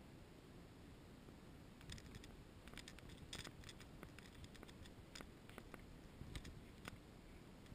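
Near silence with scattered faint clicks and ticks from about two seconds in until near the end.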